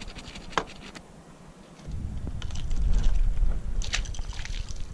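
Wind rumbling on the microphone, with a short splash in the water about four seconds in as a small speckled trout drops back in.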